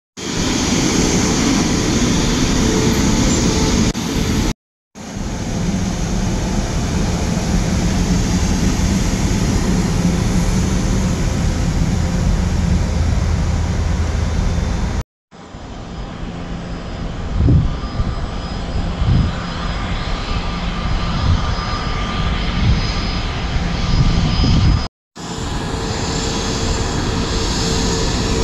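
Twin-engine jet airliners taxiing with their engines at low power: a steady jet rumble and hiss with a faint even whine, broken by three brief drop-outs to silence. A few short low thumps come in the middle stretch.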